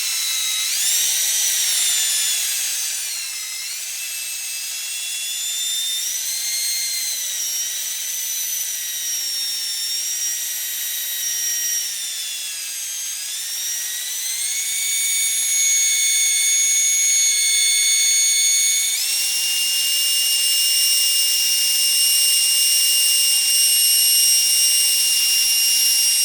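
Electric drill running, spinning a hydraulic directional control valve spool held against crocus cloth wetted with WD-40 for a light polish. The motor whine wavers up and down in pitch, then steps up to a higher, steady speed about 19 seconds in.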